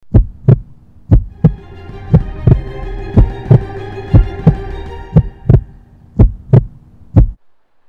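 Dark electronic music: deep drum thumps in pairs like a heartbeat, about one pair a second, with a held synth chord swelling in about a second and a half in and fading out near the end. It cuts off suddenly just before the end.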